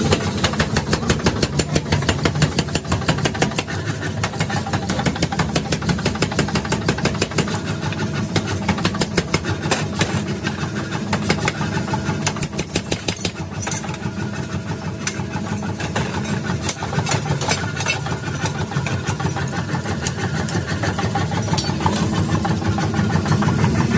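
Mechanical power hammer pounding a red-hot pickaxe head in rapid, evenly spaced blows, several a second, over a steady low drone from the running machine.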